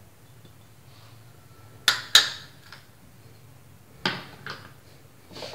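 Sharp clicks and knocks of small kitchen containers being handled and set down: two quick ones about two seconds in, another pair around four seconds, and a softer one near the end.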